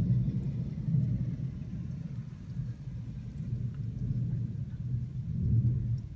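Thunder rumbling low and long, swelling and fading several times.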